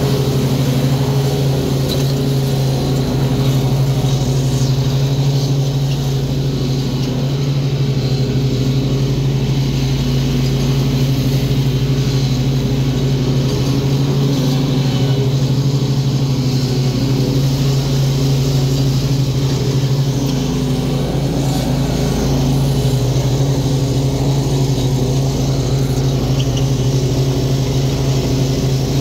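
Stand-on zero-turn lawn mower's engine running steadily at a constant speed while mowing.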